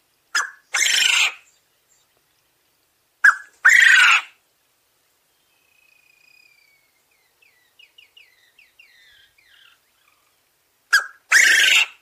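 Male Coturnix (Japanese) quail crowing three times. Each crow is a short first note followed by a longer, harsh, rasping phrase. Two crows come about three seconds apart, and a third comes near the end.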